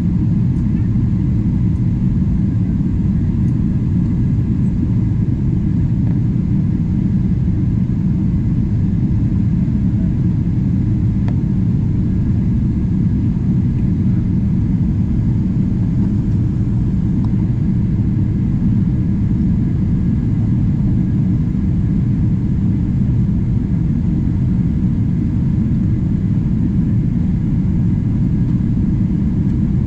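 Steady low cabin noise of a jet airliner in flight, the engines and rushing air heard from inside the cabin.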